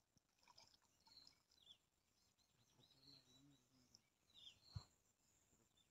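Near silence: faint outdoor ambience with a few faint, short high chirps and one soft thump nearly five seconds in.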